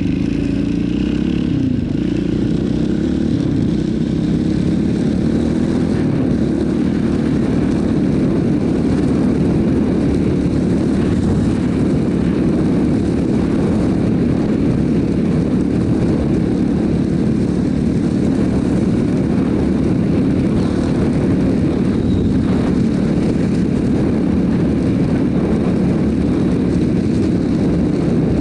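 Yamaha Warrior 350 quad's single-cylinder four-stroke engine running steadily while the quad is ridden along a dirt track. The engine note shifts briefly near the start, then holds an even pitch.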